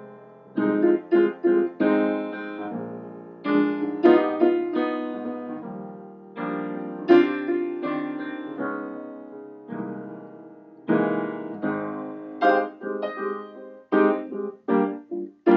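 Grand piano played solo: chords and notes struck and left to ring and fade, with bursts of quick repeated chords, the busiest in the last few seconds.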